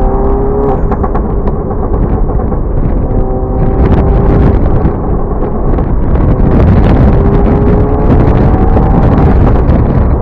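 Volkswagen Golf GTI Mk7's turbocharged four-cylinder exhaust on a 5150 Racing 'AK-47' tune, revving hard with the engine pitch sliding up and down. Many sharp pops and crackles break through, and it grows louder from about halfway.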